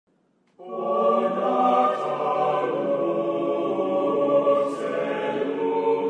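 A choir singing held chords, starting suddenly about half a second in.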